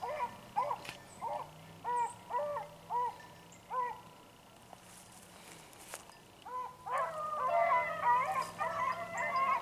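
Beagle rabbit hounds baying on the chase. First one hound gives a string of short, arched bays, then the voices drop away for a couple of seconds. From about seven seconds in, several hounds bay together, their voices overlapping.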